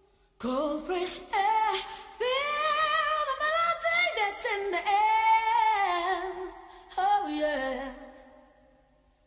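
Music: a woman singing held, wavering notes with little or no accompaniment. The voice comes in about half a second in and fades away near the end.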